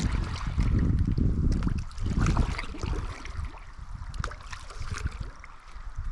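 Water splashing and sloshing beside a canoe as a hooked sooty grunter is brought in, with scattered short splashes and knocks. A loud low wind rumble on the microphone fills the first couple of seconds, then dies down.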